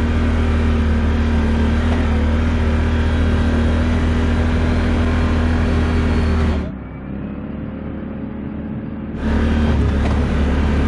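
Can-Am ATV engine running at a steady low speed, heard from on board, its pitch hardly changing. About two-thirds of the way through the sound turns quieter and duller for a couple of seconds, then returns to the same steady drone.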